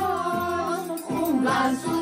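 A group of women and children singing a Romanian Christmas carol (colind) together in held notes, with a triangle ringing along.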